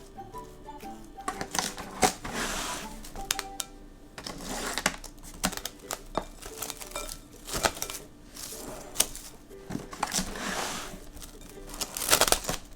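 Background music, over repeated sharp clicks and short rustling, crinkling handling noises.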